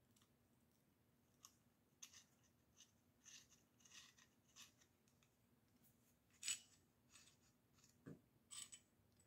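Faint scattered clicks and light scrapes of small steel screws and a magnetic-tipped driver against scope-ring caps as the screws are started by hand, the sharpest click about two-thirds of the way through.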